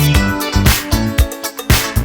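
Upbeat funk-style dance music with a steady beat, a drum hit about every half second, and no singing.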